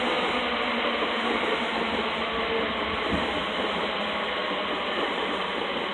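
Electric multiple-unit passenger train running at the station: a steady noise with a faint hum, and a single low thump about three seconds in.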